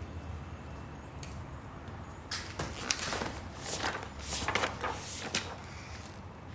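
A low steady hum, then, about two seconds in, a run of short knocks and scrapes lasting about three seconds.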